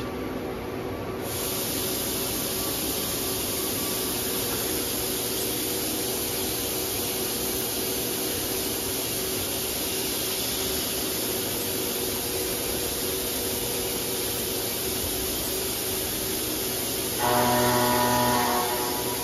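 Doosan DNM750L CNC vertical machining center running in its enclosure: a steady hiss with a low hum. Near the end, a louder whining tone lasts about a second and a half.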